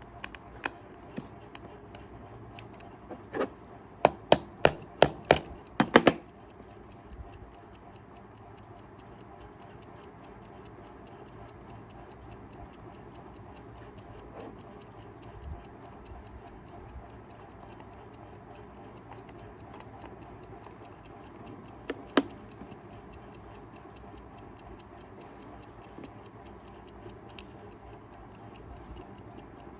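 Kaiser 4 Rubis travel alarm clock's movement running with a rapid, even, faint ticking. A quick run of loud, sharp clicks or knocks comes about four to six seconds in, and a single one near the twenty-second mark.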